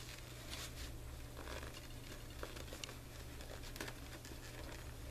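Faint rustling and light taps of a cardboard journal cover and paper pages being handled as string is worked through the sewing holes, over a steady low hum.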